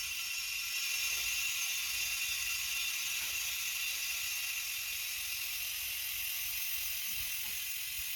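Steady hiss of compressed air with a mechanical whir, as a car tire is reinflated through its valve stem after the rim-bead leak repair.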